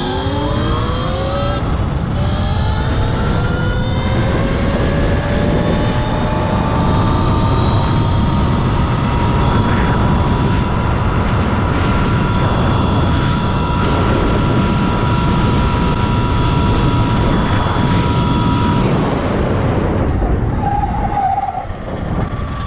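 Talaria XXX electric dirt bike at full throttle on a 74 V battery: the electric motor's whine climbs in pitch as the bike accelerates, then holds steady at top speed (about 58 mph) under heavy wind rush on the microphone. The whine stops about 19 seconds in as the throttle is let off.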